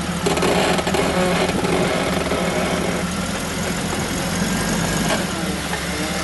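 Jeep Wrangler YJ's engine running steadily at low revs.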